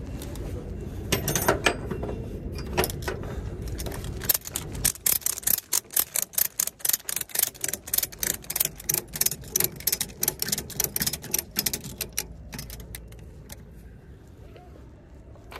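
Ratchet strap being tightened: the metal ratchet buckle's pawl clicks as the handle is worked back and forth to tension the cargo strap. A few clicks come about a second in, then a long, rapid run of sharp clicks that stops a few seconds before the end.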